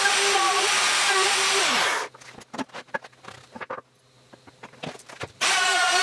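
Milwaukee router cutting into the wooden box top, its motor whine wavering and dipping under load; it stops abruptly about two seconds in. Light wooden knocks and clicks follow as the board fence is shifted by hand, and the router starts cutting again abruptly near the end.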